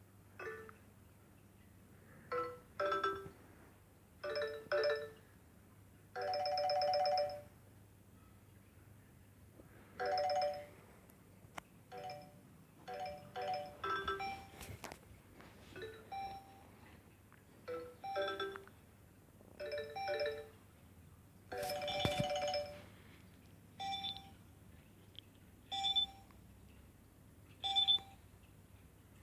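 Nokia 6300 mobile phone playing electronic ringtone tones through its small speaker: short pitched notes in bursts, separated by brief pauses, with two longer held tones, one about a quarter of the way in and one about three quarters through.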